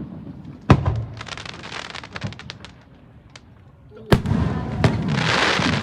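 Fireworks exploding: a sharp bang followed by a quick run of crackles, then a second bang about four seconds in that gives way to a dense, sizzling crackle.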